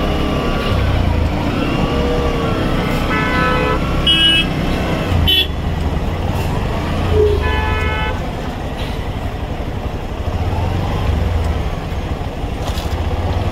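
Road traffic at a standstill: several vehicle horns honking over the low rumble of engines running. One horn sounds about three seconds in, short higher toots follow around four and five seconds, and another horn near eight seconds.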